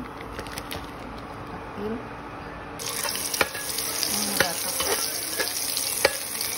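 Hotdogs sizzling as they fry in oil in a pan, a dense hiss that starts suddenly about three seconds in, with a few sharp pops or clicks over it.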